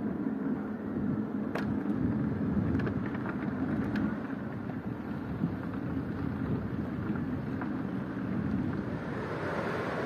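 Steady low rumble of ocean surf, with a few faint clicks in the first few seconds. The surf grows brighter near the end as breaking waves come closer.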